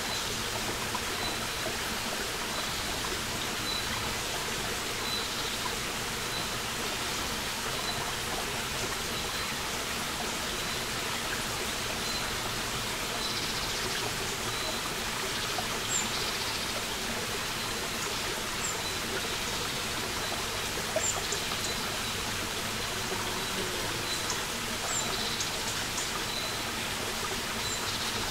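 Small forest brook running over stones, a steady rush of water. Birds call over it: a faint high note repeated about once a second, and a few brief higher chirps in the second half.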